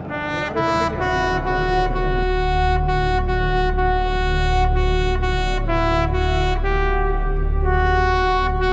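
Trumpet-led brass music playing a slow tune of long held notes, over a steady low rumble.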